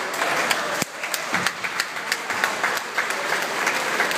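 Crowd applauding in a hall: steady clapping with many sharp individual claps standing out.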